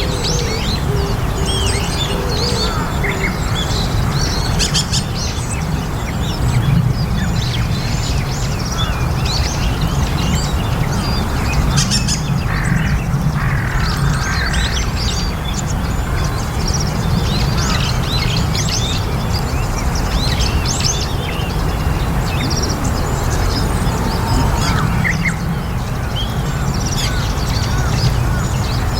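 A flock of white-cheeked starlings calling: many short chirps and chattering notes overlapping throughout, over a steady low rumble.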